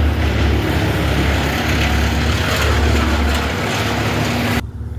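Truck-mounted wood chipper running steadily: a low engine hum under loud, wide machine noise. The higher noise cuts off suddenly just before the end, leaving the low hum.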